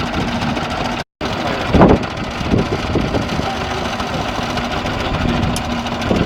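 An engine running steadily at idle, with a louder low burst a little under two seconds in. The sound cuts out completely for a moment about a second in.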